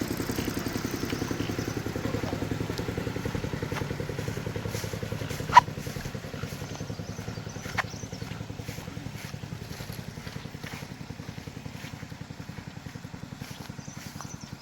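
A small engine running steadily with a fast, even beat, slowly growing quieter. Two sharp clicks, one about five and a half seconds in and one near eight seconds.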